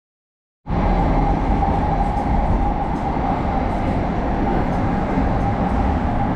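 Steady rumble of a moving public-transport vehicle heard from inside its passenger cabin, with a steady mid-pitched hum over it. It cuts in abruptly a little over half a second in.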